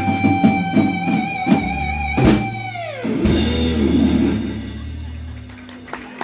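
Live rock band finishing a song. An electric guitar holds a high note with vibrato over drum hits, then slides down in pitch about three seconds in, and the band's last chord rings out and fades.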